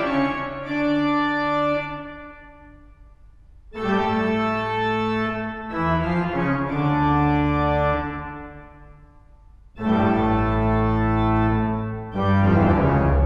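Recording of the large pipe organ of Huddersfield Town Hall, made with a spaced pair of omni microphones: full sustained chords in three phrases, each dying away slowly into the hall's reverberation, with deep pedal bass coming in about ten seconds in.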